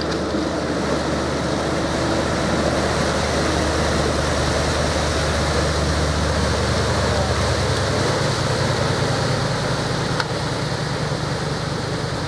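Lifeboat's twin diesel engines running as it pulls away, with propeller wash churning the water into a steady rushing hiss. About eight seconds in, the engine note shifts as the throttle changes.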